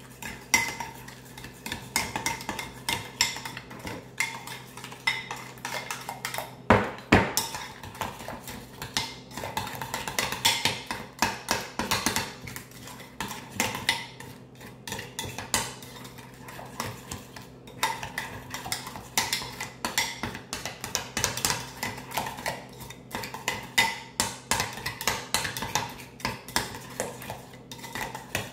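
A utensil clinking and scraping against a bowl while stirring a thick mayonnaise dressing, with many quick irregular taps and a few louder knocks.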